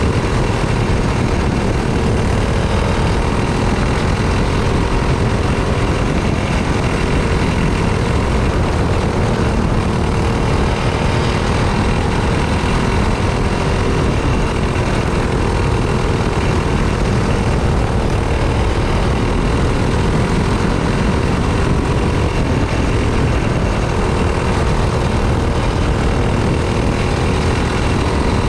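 Racing kart engine running at speed, heard from an onboard camera with heavy wind rumble over the microphone. The engine note holds fairly steady, rising and falling slightly with the throttle through the corners.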